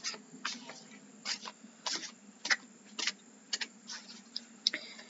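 Light, irregular clicks and taps, about a dozen short ones spread over a few seconds: tarot cards being handled.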